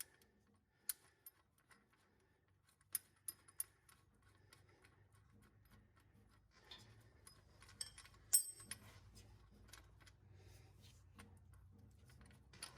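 Scattered light metallic clicks and clinks of tools on the tensioner pulley's bolt as it is being unscrewed, with the sharpest clink about eight seconds in. A faint low hum sits underneath from about four seconds in.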